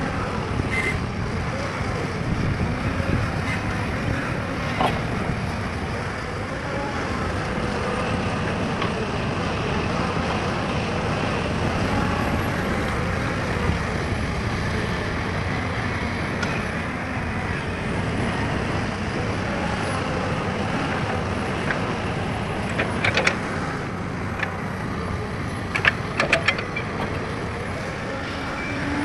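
Heavy diesel engines of an excavator and dump trucks running steadily, with a few short sharp knocks or clanks about two-thirds of the way through and again a few seconds later.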